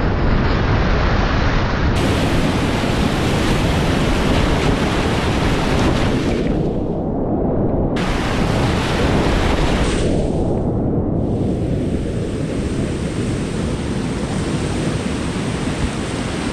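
Whitewater rapids rushing loudly and steadily close to the microphone, with wind noise on the microphone. Twice the sound briefly goes dull, as if the upper part were cut off.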